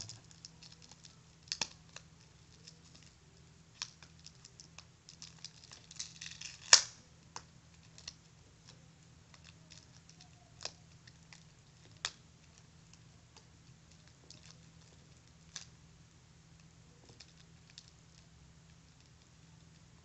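Fingers picking at and peeling the plastic shrink-wrap off a boxed deck of playing cards: irregular crinkles and sharp clicks, the loudest about seven seconds in.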